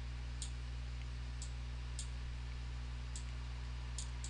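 Five light, sharp clicks at uneven intervals over a steady low electrical hum: a pen stylus tapping and drawing on a tablet.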